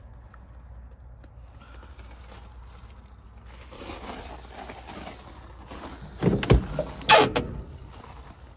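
Handling and movement noises in an old car's cabin: rustling, then two dull thumps and a short, louder scrape or creak about seven seconds in, as someone shifts out through the open driver's door.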